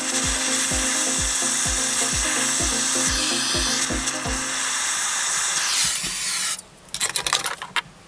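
Small gas torch hissing steadily as it heats a copper cable lug for soldering, under background music with a steady beat. The hiss cuts off suddenly about six and a half seconds in, followed by a few light clicks.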